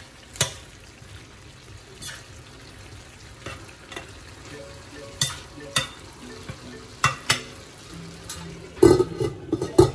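A slotted metal spatula stirs a simmering vegetable-and-fish stew in a stainless-steel Saladmaster pan, making scattered sharp clicks and scrapes against the pan over a low, steady sizzle. Near the end comes a louder run of metal clatters.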